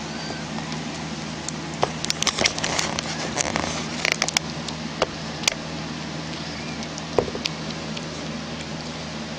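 Persian mother cat licking her newborn kitten clean: a run of wet clicks and crackles between about two and five and a half seconds in, and one more near seven seconds, over a steady low hum.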